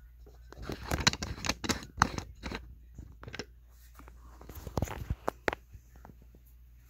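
Handling noise as the camera is moved down for a close-up: a flurry of knocks, clicks and rustles, then a second shorter flurry about two seconds later.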